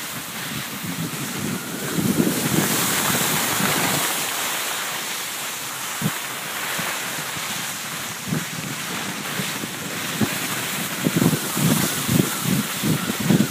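Wind rushing over the microphone while skiing downhill, over the hiss of skis sliding on soft, heavy spring snow. It gets louder about two seconds in, and gusty low buffeting picks up near the end.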